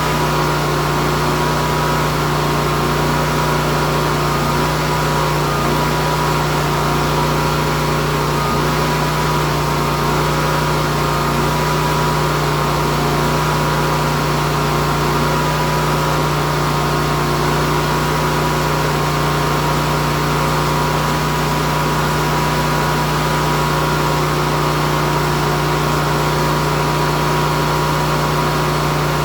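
Portable generator engine running at a steady speed, an even, unchanging hum.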